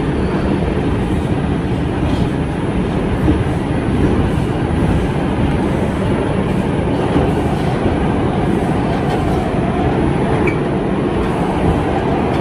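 Bombardier R142 subway car running in the tunnel: a steady, loud rumble of wheels on rail, heard from inside the car.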